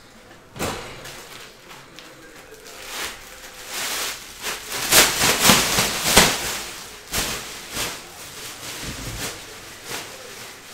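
Plastic trash bag rustling and crinkling as it is handled, loudest in the middle, with a few sharp knocks among it.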